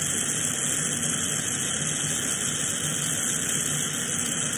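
Glassworking bench torch burning with a steady hiss while borosilicate rod is melted in its flame.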